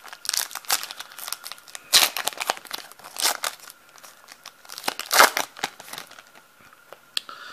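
Shiny foil wrapper of a 2016 Donruss Optic baseball card pack crinkling and tearing as it is opened by hand. It comes as a run of sharp crackles, loudest about two seconds in and again about five seconds in.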